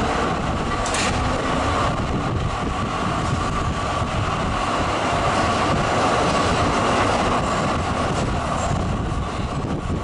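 Zürich tram running along a city street, heard through an open window: a steady rumble of wheels on the rails with a steady tone above it, and a sharp click about a second in.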